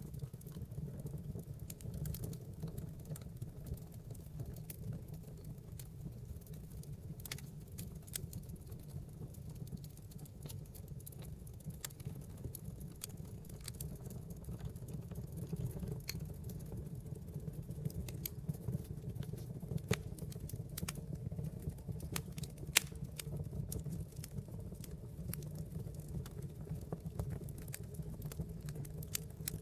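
Wood fire burning in a fireplace: a steady low rumble of flames with dense, irregular crackles and small wood pops, one sharper pop a little past three-quarters through.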